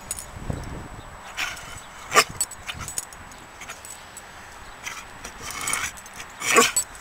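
Basset hound barking a few short times, loudest about two seconds in and near the end.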